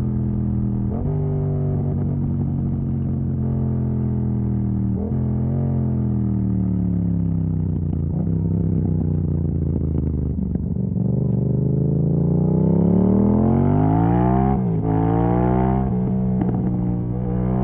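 Yamaha MT-07's parallel-twin engine running through an exhaust with its dB killer removed, under riding load. Its note sinks slowly for several seconds, then climbs steadily as it accelerates. Sharp gear changes cut and drop the pitch about a second in, about five seconds in, and twice near the end.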